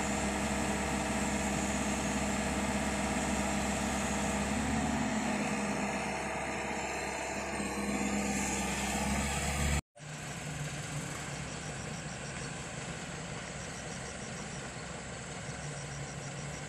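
Excavator's diesel engine running steadily. The sound drops out for an instant just before halfway, then goes on a little quieter and steady.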